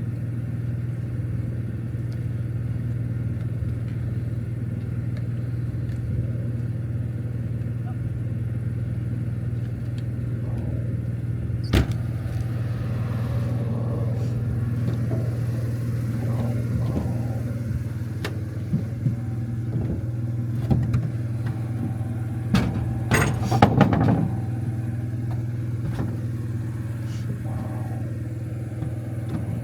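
Portable generator running steadily with a constant low hum, powering the travel trailer's electric front lift. A sharp knock comes about twelve seconds in, and a brief clatter of knocks near the end.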